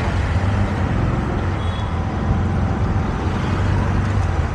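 Ride in a moving auto-rickshaw through busy city traffic: a steady low engine drone with road and traffic noise around it.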